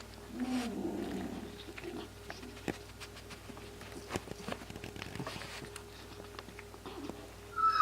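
Yorkshire terrier foraging for treats in a fleece snuffle mat: scattered light clicks and soft rustling as it noses through the fabric.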